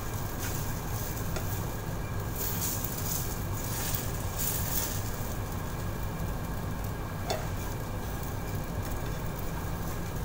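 Small pancakes sizzling in a non-stick frying pan under a steady low hum, with a fork clicking against the pan about seven seconds in.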